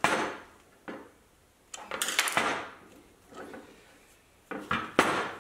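Aluminium slide parts being handled and worked by hand: a scrape at the start, a longer rubbing scrape about two seconds in, and a few clicks ending in a sharp knock near the end.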